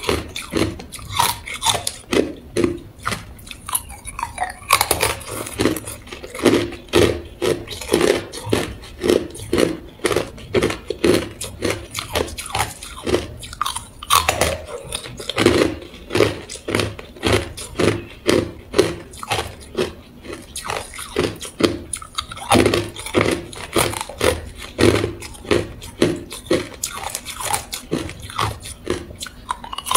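Hard clear ice being bitten and chewed, crunching and cracking between the teeth in a steady run of sharp crunches, a few a second.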